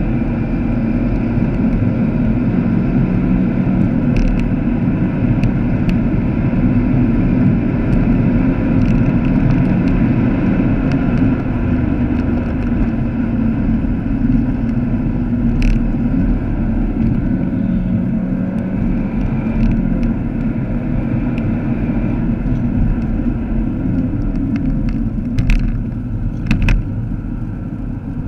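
Vauxhall Astra VXR's turbocharged 2.0-litre four-cylinder engine running at speed, heard from inside the cabin along with tyre and road noise, its note drifting slightly up and down. Several sharp ticks come near the end as the car turns into a corner.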